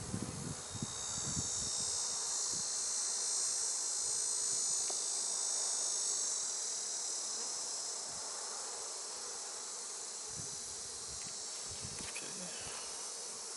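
Steady high-pitched insect drone, loudest over the first six seconds or so and then a little softer, with a few soft knocks near the end.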